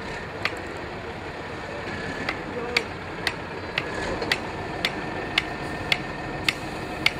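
Off-road trial truck running slowly as it crawls over a sand hump: a steady low engine rumble. Over it is a sharp, regular click about twice a second.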